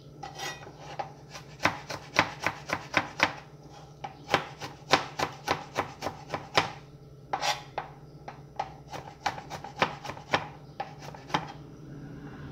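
Kitchen knife chopping on a cutting board: quick runs of sharp knocks, about three to four a second, broken by short pauses.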